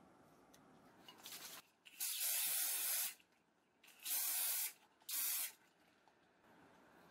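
Aerosol can of Saphir Super Invulner protector spray hissing in bursts as it is sprayed onto a leather sneaker. There is a faint short puff a little after a second in, then a spray about a second long, and two shorter ones around four and five seconds in.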